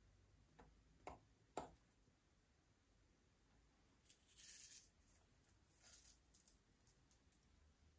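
Faint slime-mixing handling sounds, very quiet overall: three light taps about half a second apart, then two short crackly rustles a second or so apart, and a few faint ticks.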